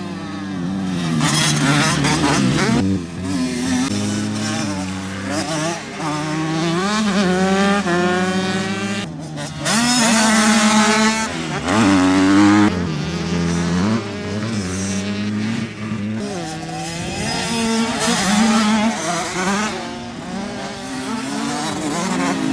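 Supermoto racing motorcycles at full throttle, engines repeatedly revving up through the gears and dropping off under braking, with several bikes heard at once.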